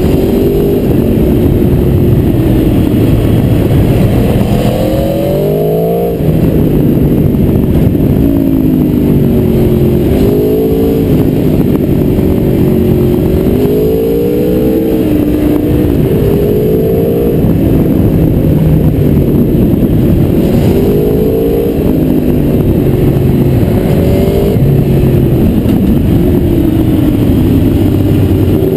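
Aprilia Tuono V4R's V4 engine under repeated hard acceleration. Its pitch climbs through each gear, then drops back at the shift or when the throttle is rolled off, about eight times over, with steadier-running stretches between.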